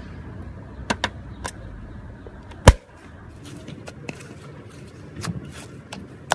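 Knife cutting into a slime-filled stress ball: a few sharp clicks, then one loud knock about a third of the way in, likely the blade striking the surface beneath, then fainter clicks and soft crackling. A low steady hum sits underneath.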